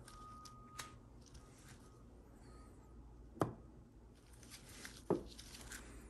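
Two sharp knocks, about a second and a half apart, from the assembled GM TH400 gear train as the front planet is lifted and let down by hand against the rear planet to check the travel between them. The play is still loose enough to take more shims.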